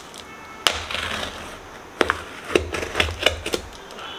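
Small kitchen knife slitting the tape seal on a cardboard carton: a sharp click under a second in, a short scrape, then a run of small clicks and taps on the cardboard.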